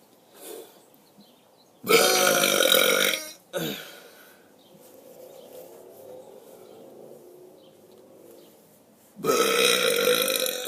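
A man belching on purpose: one long, loud burp about two seconds in, lasting about a second and a half with a short tail, then another long, loud burp starting near the end.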